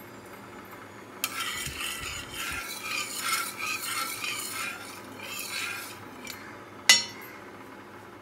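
Metal spatula scraping and spreading hot oil across a dosa griddle for a few seconds, then one sharp metallic clink, the loudest sound.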